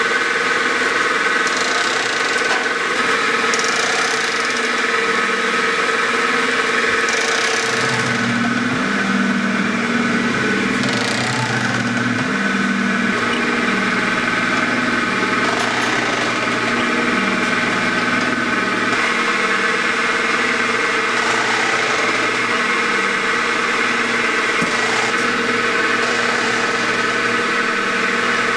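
Steady mechanical hum of fish cake–making machinery: the automatic frying line and mixers run continuously. A lower drone joins about a third of the way in and drops away about two thirds through.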